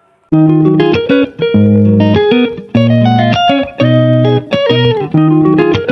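Background music: a plucked guitar melody over a bass line, starting about a third of a second in.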